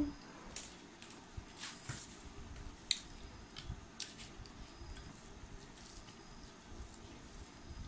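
Eating sounds: fingers squishing and mixing rice and fish curry on stainless steel plates, with chewing and scattered light clicks of food and fingers against the metal.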